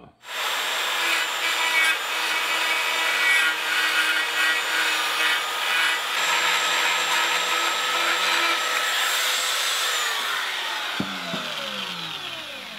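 A die grinder grinding a mounting boss off a cast-aluminium 4AG 20-valve Blacktop throttle body, a steady high whine over a harsh grinding noise. About ten seconds in, the whine falls in pitch as the grinder is let off and spins down.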